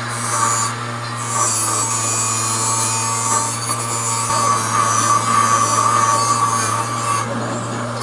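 A bench grinder runs with a steady hum while the cast-metal parts of an Edwards Adaptabel school bell are pressed against its wheel, giving a rough grinding and scraping noise. The scraping eases briefly about a second in and again near the end, as the part comes off the wheel.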